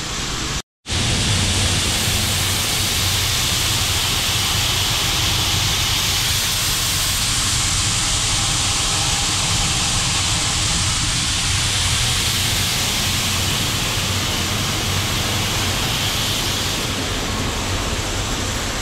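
Shelled corn pouring steadily out of a grain truck into the receiving pit, an even rushing hiss over a low, steady machinery hum.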